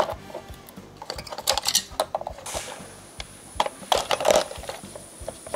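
Hard plastic headlight parts and a small metal hand tool clicking and clattering as a car headlight is taken apart by hand, in a few short clusters of sharp knocks.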